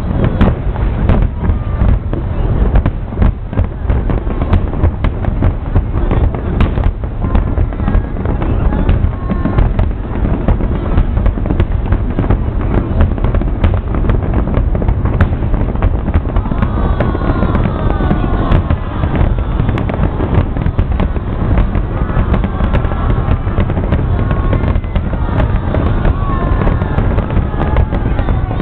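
Fireworks display in a dense, continuous barrage of bangs and booms with a deep rumble under them.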